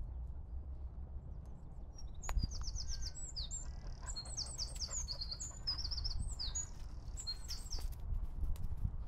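A songbird singing a rapid, varied song of quick repeated high notes and trills, starting about two seconds in and stopping shortly before the end, over a steady low rumble.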